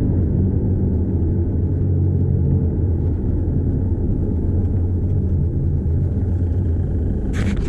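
Cabin sound of a 2009 Land Rover Freelander 2 TD4 driving on a paved road: the 2.2-litre diesel engine and tyres make a steady low drone. A brief hiss comes in near the end.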